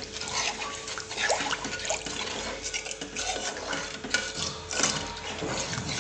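A spoon stirring milk into roasted turmeric paste in a pan, the liquid swirling, with irregular clinks and scrapes of the spoon against the pan.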